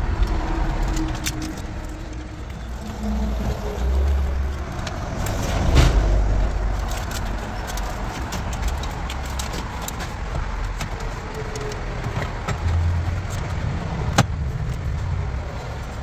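Wiring harnesses and plastic plugs being handled and plugged into an aftermarket car radio behind the dash: rustling and low bumps, with two sharp clicks, one about six seconds in and one near the end.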